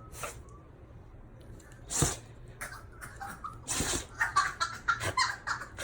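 Black Shiba Inu sneezing: two loud, sharp sneezes about two seconds apart, followed near the end by a quick run of short bursts.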